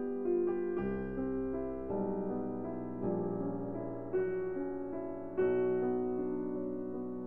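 Background piano music: slow, gentle chords, a new note or chord struck about once a second and left to ring out, over a low bass line.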